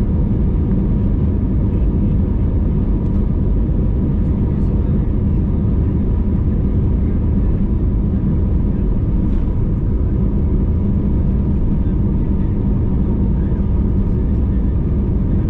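Airbus A320neo cabin noise at a window seat: the engines run at low, steady power while the airliner rolls slowly on the ground. The rumble is steady, with a faint constant hum on top.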